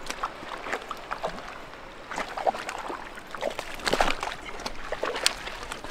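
Water splashing and sloshing in shallow lake water, in irregular splashes over a steady wash, the loudest about four seconds in.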